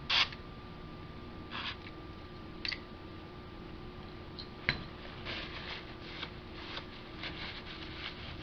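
Short hisses of aerosol contact cleaner sprayed through a thin straw into the corroded tape EQ slider of a Marantz 3650 preamp, the first the loudest. Then a single sharp click about four and a half seconds in, and a run of soft scraping rustles as the slider is worked back and forth.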